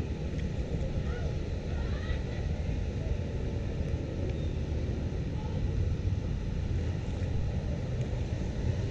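Steady low rush of moving floodwater, mixed with the splashing of sandalled feet wading through ankle-deep muddy water.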